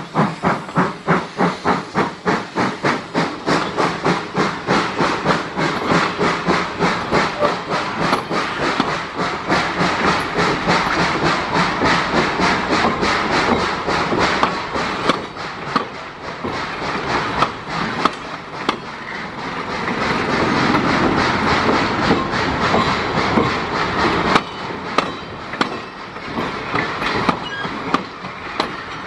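Viscose Company 0-4-0 steam locomotive No. 6 chuffing past at about three to four exhaust beats a second, the beats fading within the first several seconds. The rumble and clatter of its passenger coaches' wheels then take over, with sharp clicks over the rail joints in the later part.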